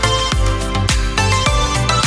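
Upbeat background music with a steady beat, a kick drum about twice a second under sustained melodic notes.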